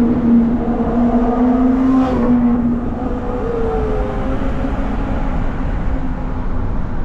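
Steady road and tyre rumble inside a car cruising on a highway, with a motorcycle engine droning close ahead for the first few seconds. A brief change in engine pitch follows, then the engine fades as the bike pulls away.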